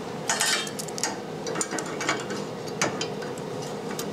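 Vise-Grip locking C-clamps being fitted and snapped shut on steel square tubing and angle: a quick cluster of metal clicks and rattles about half a second in, then several separate clicks.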